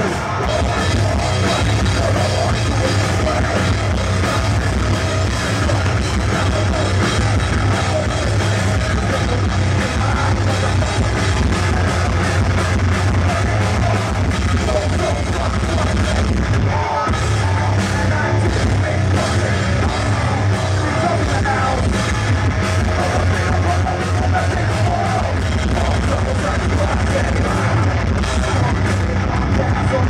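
Heavy metal band playing live at full volume: distorted electric guitars, bass and drum kit, a dense, unbroken wall of sound with a heavy low end.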